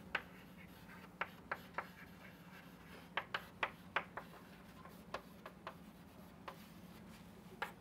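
Chalk writing on a chalkboard: a series of short, irregular taps and scratches as the chalk strikes and drags across the board, over a faint steady hum.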